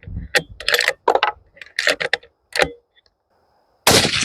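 Bolt of a Marlin X7VH .223 rifle being worked, a run of sharp metallic clicks and clacks, then a single suppressed rifle shot near the end, the loudest sound, cut short by a Dead Air Sandman S suppressor.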